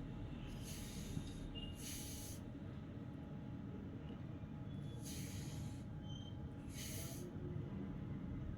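Steady low background rumble with four short hissing bursts, each about half a second long, the first near the start and the last about seven seconds in.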